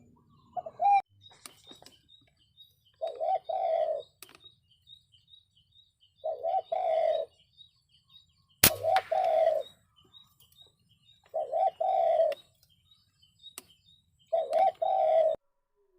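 Spotted dove cooing over and over, one short low coo about every three seconds. About halfway through, a single sharp crack rings out, louder than the coos.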